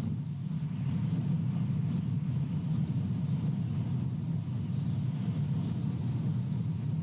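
Steady low rumble of wind buffeting the nest camera's microphone.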